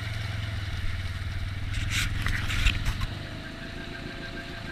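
Side-by-side UTV engine running steadily as it drives through shallow muddy water, with a burst of clattering and splashing about two seconds in; the engine drops to a quieter note about three seconds in.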